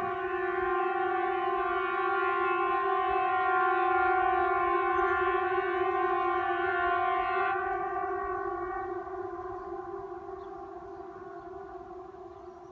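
A steady, unwavering droning tone with strong overtones. It fades away over the last few seconds.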